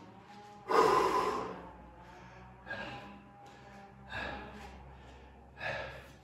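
A person breathing hard with exertion during a leg exercise: four sharp, forceful breaths about a second and a half apart, the first the loudest.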